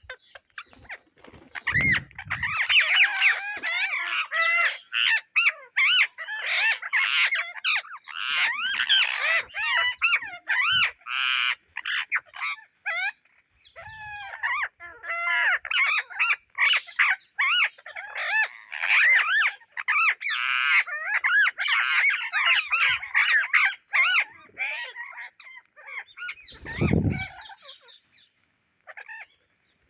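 Indian ringneck parrots calling almost without pause, a fast chatter of shrill squawks and chirps that swoop up and down in pitch. A dull thump sounds about two seconds in and another near the end.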